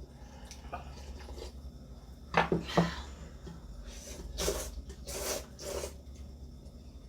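Someone eating spicy ramen: a short, sharp sneeze-like burst about two and a half seconds in, then three noisy slurps of noodles or broth in quick succession.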